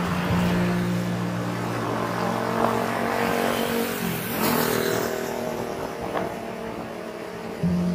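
Road traffic noise with vehicle engines running, under background music with held low notes that change about halfway through and again near the end.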